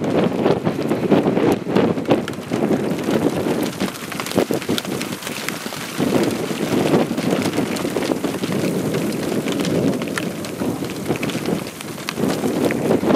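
Wind buffeting the microphone in uneven gusts, with rain falling and many sharp drop ticks.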